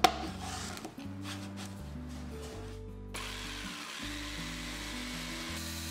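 A sharp knock at the start, then about three seconds in an electric jigsaw mounted under a plywood table starts and runs steadily with a faint high whine, over background music.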